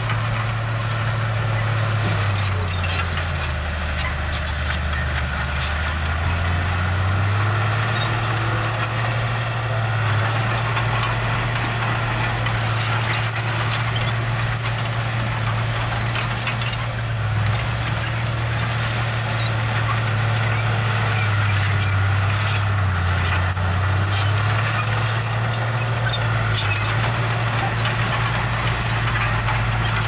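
Diesel engine of earthmoving machinery working under load, a steady low drone whose pitch drops and recovers twice, once early and again about two-thirds of the way through. Scattered small clicks and squeaks ride over it.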